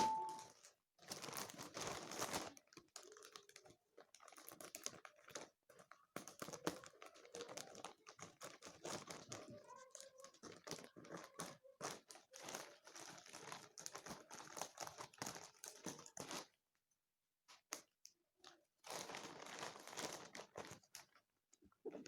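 Plastic packaging of a delivered parcel crinkling and rustling in irregular bursts as it is unwrapped, stopping for a couple of seconds about three quarters of the way through before a last spell of rustling.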